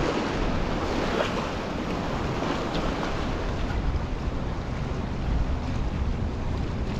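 Ocean surf washing against the inlet rocks, with wind buffeting the microphone as a steady low rumble.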